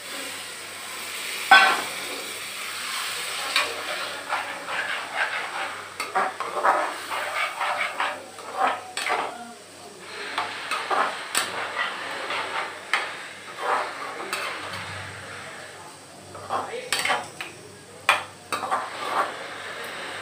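A perforated steel spoon stirring and scraping masala with paneer in a metal kadai, giving many irregular sharp scrapes and clinks against the pan, the loudest about a second and a half in. The masala sizzles as it fries in the oil.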